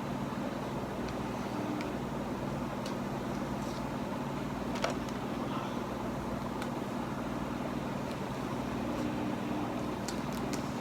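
A steady low hum runs throughout, with a few faint clicks and one sharper tap about five seconds in.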